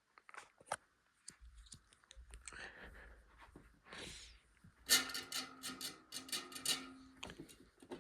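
Handling noises: scattered clicks and knocks, then a louder run of rapid rattling taps about five seconds in, lasting a couple of seconds.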